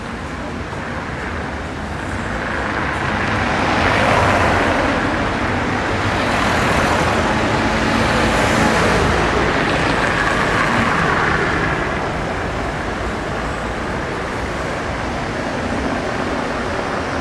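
Road traffic noise, a steady wash of vehicle sound that swells for several seconds from about three seconds in, then eases off.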